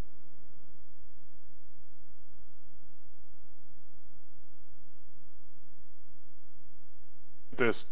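Steady electrical mains hum with many evenly spaced overtones and no speech.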